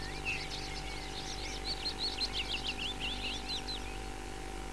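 Small birds singing: runs of quick, high chirps, densest in the middle, over a faint steady hum.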